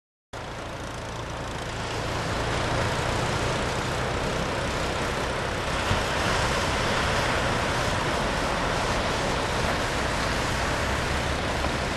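Steady rushing of small ocean waves breaking and washing up the beach, with a low rumble beneath. It starts suddenly and swells a little over the first couple of seconds.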